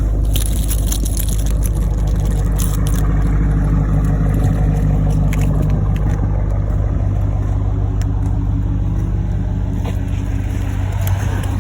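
Hemi V8 engine idling steadily shortly after a cold start, with scattered scraping of snow being cleared off the car in the first few seconds.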